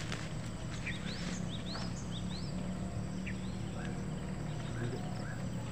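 Small wild birds chirping: many short rising chirps, repeated irregularly, over a steady low hum.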